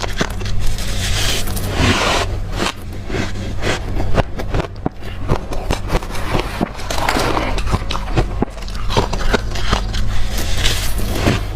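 Hard, freezer-frosted crushed ice being chewed close to the microphone: a dense run of sharp cracks and crunches, with a few longer scraping sweeps, over a low steady hum.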